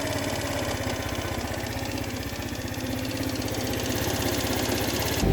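Baotian Comfort scooter's 50cc four-stroke GY6 (139QMB) engine idling unevenly, the idle sagging about two seconds in and picking up again. The owner is chasing this erratic idle and a strange noise from the variator side, which he later traces to a worn kick-start bushing and gears.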